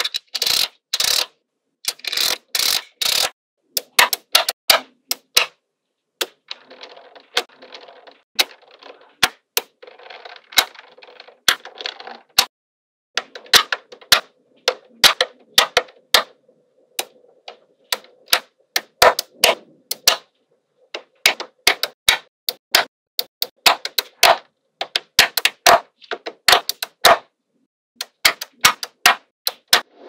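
Small magnetic balls clicking and snapping together as sheets of balls are pressed and adjusted by hand: sharp clicks, sometimes in quick runs, with a softer clatter of balls shifting against each other for stretches in between.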